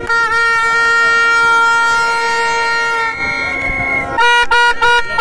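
Plastic stadium horn (vuvuzela-type) blown in one long steady note, then a string of short blasts near the end, over crowd voices.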